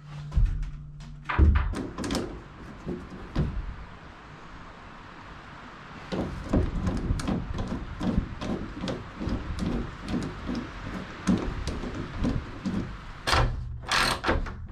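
Knocks and thuds of a plywood panel being handled and fitted against the metal wall of a shelter-box camper, then a long run of irregular clicks and clacks as it is fastened with hand tools. A short low hum sounds about a second before the end.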